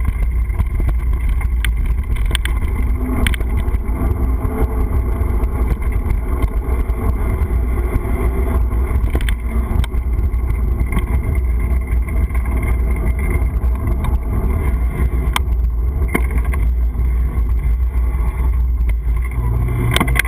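Wind buffeting the microphone of a moving GoPro action camera: a loud, steady low rumble, with scattered sharp knocks and rattles as it jolts over the ground.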